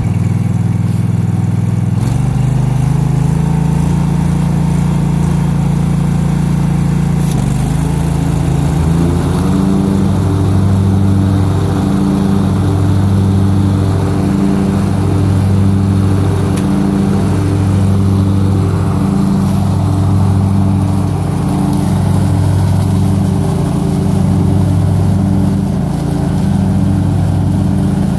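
Riding lawn mower's engine running with the cutting deck engaged, mowing up leaves and blowing them out the discharge chute into a tarp bag. The pitch shifts about two seconds in and again around eight seconds, then the sound swells and fades in a slow, even throb about every two seconds.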